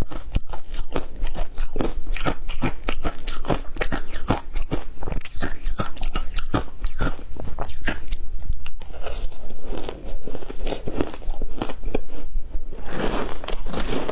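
Crushed ice coated in matcha powder being bitten and chewed: a dense run of crisp crunches, with a short lull about two thirds in. Near the end, a spoon scooping through the ice in the bowl gives a rougher, more continuous scraping crunch.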